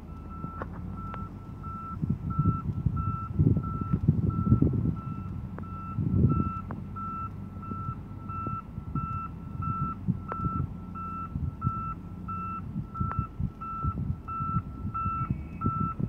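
Reversing alarm on a backing articulated dump truck, a steady run of evenly spaced beeps, over the diesel engines of the truck and a crawler dozer running.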